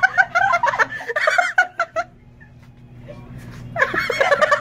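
People giggling and laughing, breaking off for about two seconds in the middle before the laughter starts again.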